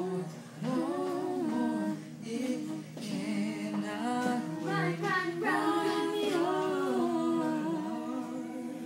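Several voices singing a cappella, holding long notes in harmony with no instruments.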